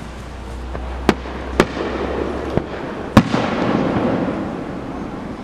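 Aerial fireworks bursting: sharp bangs about a second in and half a second later, a smaller one, then the loudest just past three seconds, followed by a rolling noise of the display.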